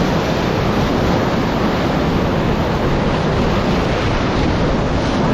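Whitewater rapids: a loud, steady rush of churning river water.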